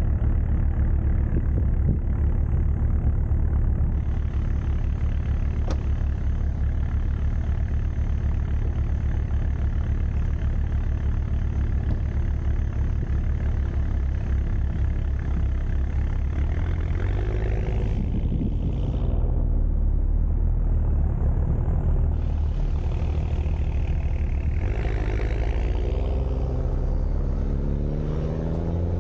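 A vehicle engine runs with a steady low rumble. In the second half its pitch glides up and down twice, as the engine speed changes.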